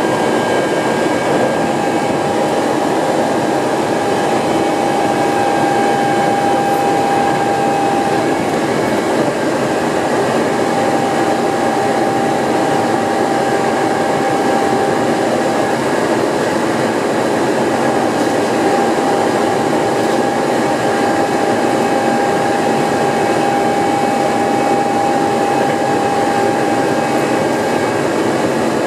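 Hankyu Kyoto Line electric train running steadily at speed, heard from inside the leading car: a continuous rumble of wheels on rail with a steady whine that fades and comes back.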